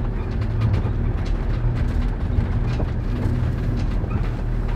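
Campervan driving slowly along a gravel track, a steady low engine and tyre rumble heard from inside the cab, with light scattered crackles from the gravel under the tyres.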